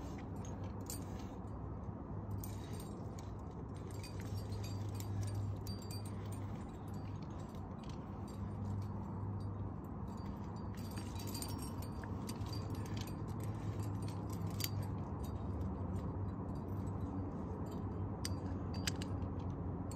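Metal climbing hardware, carabiners and gear on a harness, clinking and jingling in scattered small clicks over a steady low rumble.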